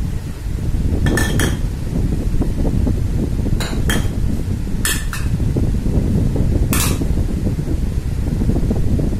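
Small bowls clinking as they are picked up and set down on a table: about seven sharp clinks, several in quick pairs. A steady low rumble runs underneath.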